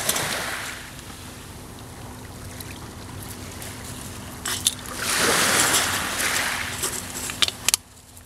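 A steady rushing hiss that swells loudly for a second or two about five seconds in. Over it come a few sharp clicks of an aluminium beer can knocked about on gravel by a small terrier, a pair about halfway through and a quick few near the end.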